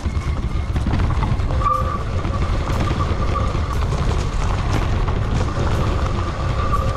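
Electric mountain bike riding over a leaf-covered dirt trail: a steady rumble of tyres and wind on the microphone, with the motor's wavering whine and scattered clicks and rattles of the bike over bumps.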